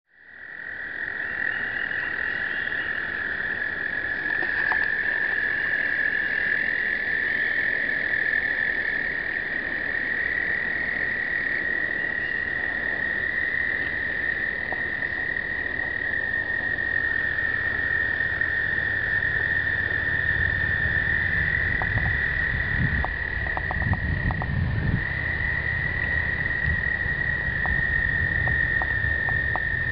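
Breeding chorus of American toads: many long, high trills overlapping at slightly different pitches, merging into one unbroken drone. Low rumbling and a few faint clicks come in over the second half.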